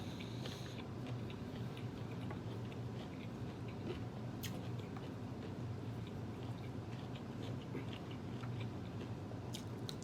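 A person chewing food close to the microphone, with many small, irregular wet mouth clicks, over a steady low hum.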